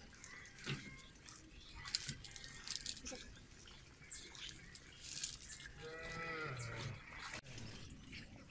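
Dry twigs clicking and snapping as they are handled and pushed under a small wood fire. A farm animal gives one drawn-out call about six seconds in.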